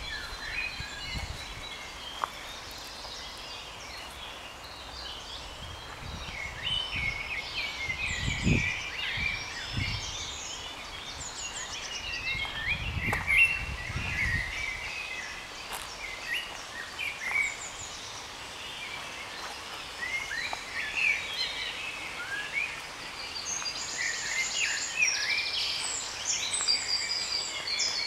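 Several songbirds singing in woodland, a dense chorus of short high chirps and trills, busiest near the end. A few low rumbles come through around the middle.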